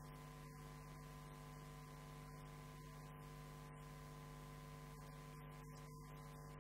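Faint, steady electrical hum made of several constant tones, with no speech.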